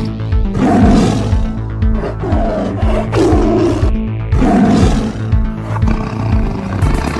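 Big-cat roars and growls, several in a row, over loud dramatic background music.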